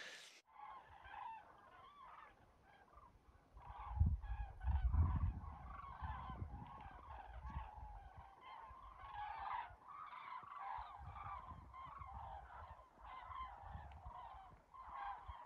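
A large flock of migrating birds flying over in long V-formation skeins, calling continuously with many overlapping honking calls. A low rumble rises briefly about four seconds in.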